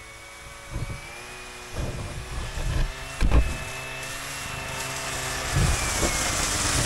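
Yamaha Viking II snowmobile's two-stroke engine running as the sled drives toward the microphone, growing steadily louder with its note rising a little. Several short low thumps break in, the loudest about three seconds in.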